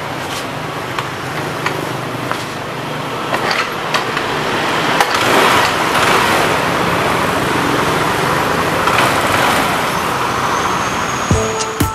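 Yamaha NMAX scooter's single-cylinder engine running as the newly made kick starter is tested, with a few light clicks; the sound swells louder about halfway through, as if revved.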